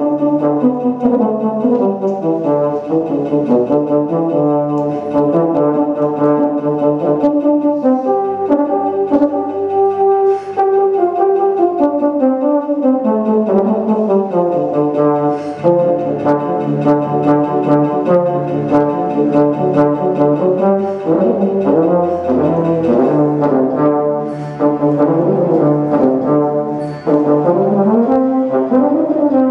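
Euphonium playing a solo line in flowing phrases that run up and down, over long held low accompaniment notes.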